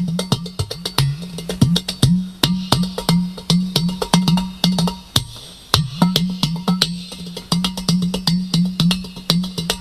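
Udu clay pot drum played in a busy rhythm. Sharp taps on the clay body mix with deep, hollow bass tones from the pot that bend upward in pitch.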